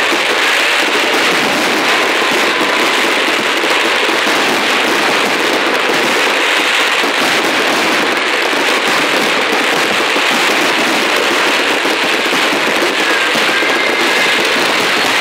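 Fireworks crackling densely and without a break, a steady mass of small pops with no single big bang standing out.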